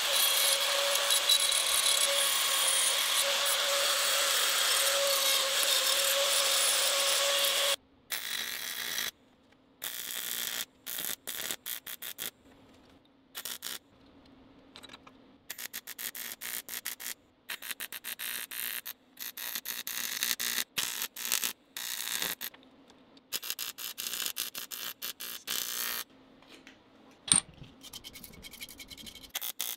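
Die grinder running steadily against the cast-aluminium foot of an electric motor, grinding it clean for welding, with a steady high tone. It cuts off about eight seconds in and is followed by many short bursts of scraping on the metal, broken by silences.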